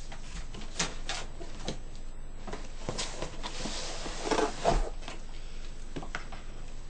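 Packaging being handled: paper rustling and crinkling, with scattered light knocks and taps, busiest about three to five seconds in.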